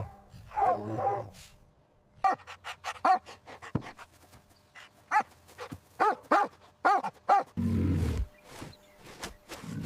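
Dog barking in short series of barks. Near the end, a loud deep growl cuts in briefly.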